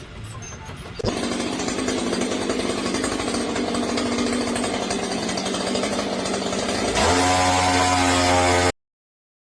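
A motor-driven machine running steadily and loud, its note changing to a louder, clearer tone about seven seconds in before the sound cuts off suddenly.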